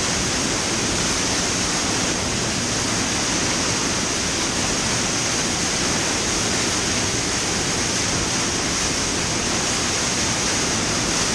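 Underground waterfall pouring down a cave shaft: a loud, steady rush of falling and splashing water.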